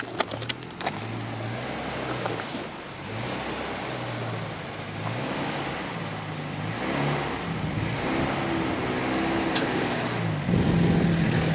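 Off-road vehicle engine running under load, revving up and easing off repeatedly as it crawls up a rocky ledge, with a few sharp knocks right at the start. About ten and a half seconds in the engine gets louder and higher as it is given more throttle.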